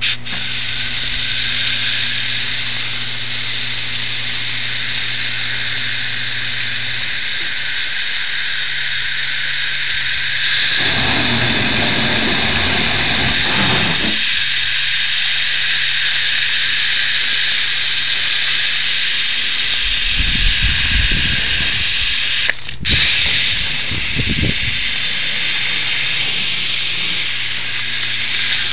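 Garden hose spraying water in a steady hiss onto a concrete mix and the surfaces around it. Twice partway through the spray turns to a deeper rushing splash.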